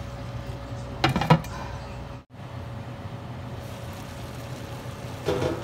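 Bopis simmering in a stainless steel pan: a steady sizzle over a low hum, with a brief knock about a second in and a momentary dropout a little past two seconds.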